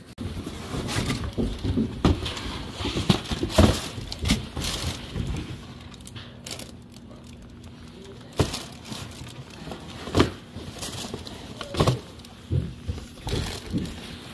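A cardboard shoebox and its tissue paper being handled: dense rustling and scraping at first, then quieter, with a few separate sharp knocks of the box later on.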